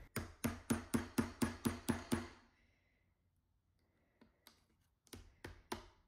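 Small sledgehammer tapping a steel nail used as a punch on a Swiss Army knife's rivet, over a wooden board: about eight quick light strikes, about three a second, then a pause of about three seconds, then a few quieter strikes near the end.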